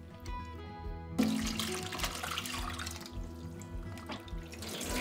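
Cold water and boiled spinach tipped from a glass bowl into a plastic colander in a stainless steel sink: water splashing and draining, starting about a second in and easing off before a second pour near the end. Soft background music plays throughout.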